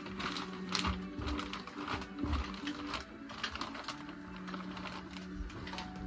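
Soft background music with held low notes, over scattered light clicks and crinkles from a plastic bag being handled.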